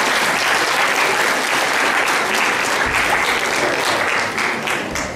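Audience applauding in a large hall, steady clapping that begins to die down near the end.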